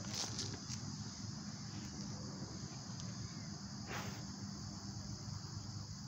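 Dog digging and snuffling at a hole in loose dirt: a few scratchy strokes of paws in soil just after the start, and one short sniff about four seconds in as it pushes its nose into the hole. Insects chirr steadily behind it.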